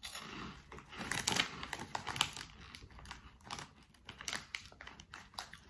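Irregular crackles and crunches from a crinkling Hippeas chickpea-puff bag and a crunchy puff being chewed.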